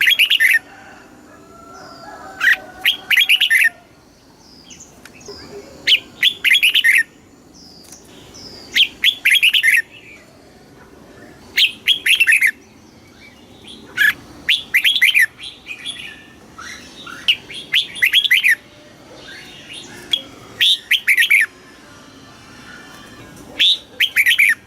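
Red-whiskered bulbul singing: short, rapid, warbled phrases, about nine of them, each under a second or so and a few seconds apart.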